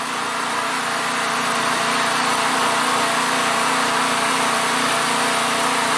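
Small portable generator engine running steadily.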